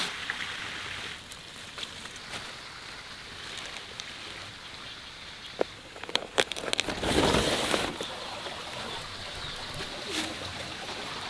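Rural outdoor ambience with birds calling. About six seconds in there is a short burst of rustling with sharp clicks.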